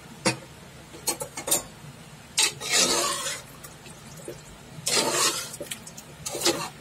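A metal ladle stirring cooked rajma (kidney beans in gravy) in an opened pressure cooker. A sharp clink against the pot comes just after the start, then a few light clinks and longer wet, sloshing stirring strokes through the thick gravy.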